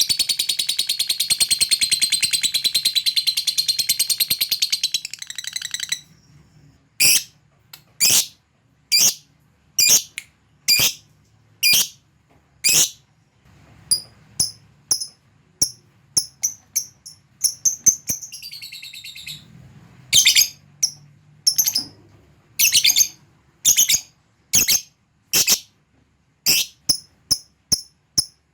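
Lovebird giving a long, rapid, high-pitched chattering trill (ngekek) for about five and a half seconds, then switching to sharp single chirps about one a second, with quicker runs of short ticking notes (ngetik) in places and near the end.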